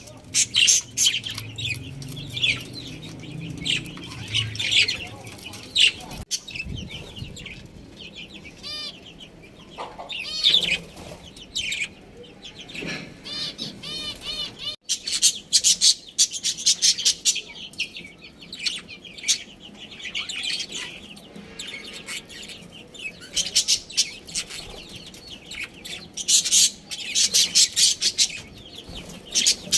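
Budgerigars chirping and chattering in quick, overlapping high-pitched bursts, with short warbling calls mixed in.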